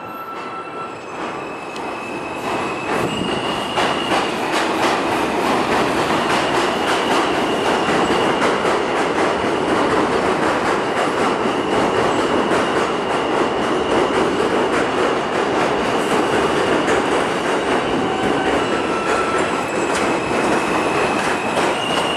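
New York City Subway train running past on curved elevated track, its steel wheels squealing in a steady high tone and clicking over the rail joints. It grows louder over the first few seconds, then holds steady and loud.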